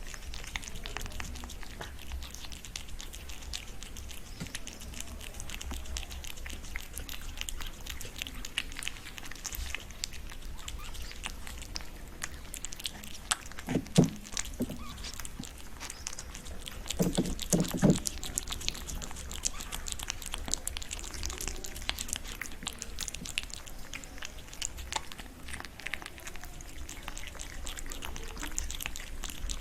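A cat eating, with steady wet chewing and small smacking clicks throughout. A couple of low thumps come about halfway through.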